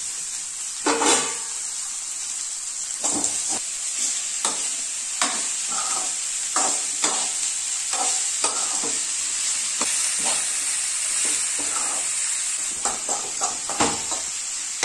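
Chopped banana flower sizzling in hot oil in a steel pan on a gas stove, a steady high hiss, with irregular scrapes and clinks as it is stirred and a louder metal clatter about a second in.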